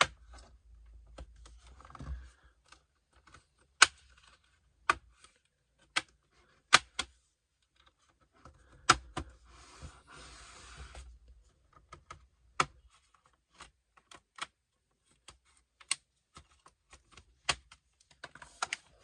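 Plastic retaining clips of a Dell Inspiron 5570's bottom cover snapping loose one after another as a pry tool is worked along the seam: a dozen or so sharp, irregularly spaced clicks, with a second-long scraping rustle about halfway through.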